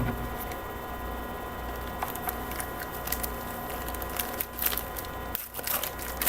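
Trading cards being handled and flipped through, with light scattered clicks and slides of card stock over a steady background hum.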